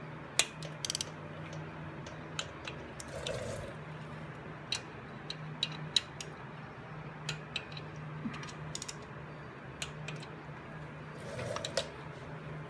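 Hand tools working on the rocker box bolts: a torque wrench and sockets giving scattered, irregular metal clicks and taps, over a steady low hum.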